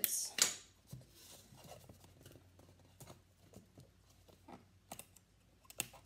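Tape and construction paper being worked onto a milk carton by hand. A short tearing or snipping burst comes right at the start, then soft rustling and light taps as the tape is pressed down, with two sharp clicks near the end.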